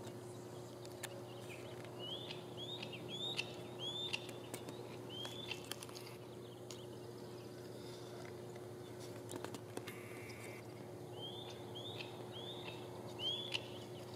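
A second white-tailed kite calling in two series of short, high, down-slurred whistles, five or six in the first series and four in the second after a pause. The uploader takes the calls as a threat to come and challenge for the prey.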